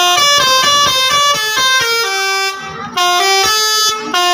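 Bus's basuri musical 'telolet' air horn playing a quick melody of stepped notes, several a second, with a short break about two and a half seconds in.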